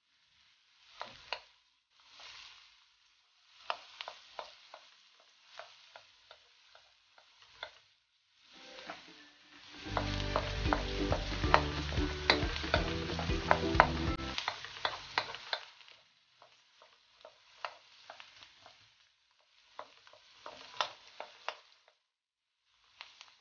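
Chopped onion and garlic sizzling in oil in a steel wok while a wooden spoon stirs them, with short scrapes and taps of the spoon against the pan. The sizzling and stirring come in spurts, growing louder and fuller for a few seconds around the middle.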